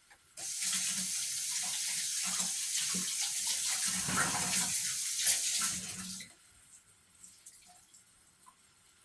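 Seasoned goat meat sizzling loudly as it browns in a pot without water, a steady hiss that starts suddenly and cuts off after about six seconds, with a few light knocks of the pot under it.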